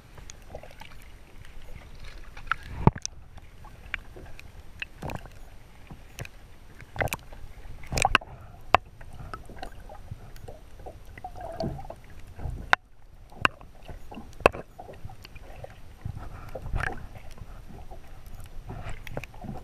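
Muffled water sloshing and swirling heard from just under the surface, with a low rumble and sharp knocks and clicks scattered through, like handling bumps against a waterproof camera housing.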